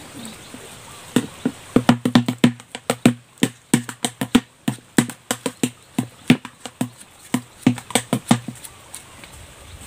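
A rapid series of sharp knocks or taps, about four a second, starting about a second in and stopping near the end.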